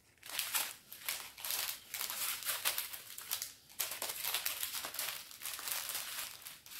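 Strip of small plastic zip bags of diamond-painting drills crinkling as it is handled, a continuous run of irregular rustles.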